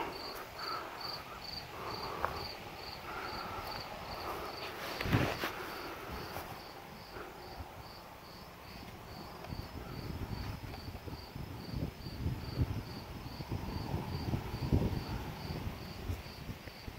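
An insect chirping steadily, about three even chirps a second. There is a single sharp knock about five seconds in, and soft rustling and scuffing through the second half.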